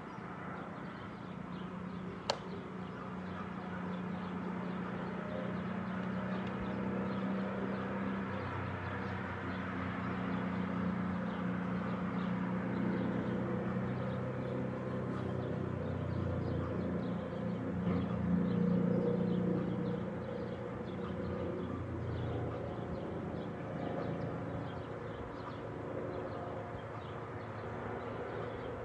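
Outdoor ambience of distant traffic: a low engine hum from vehicles that swells and fades, loudest a little past the middle. There is one sharp click a couple of seconds in.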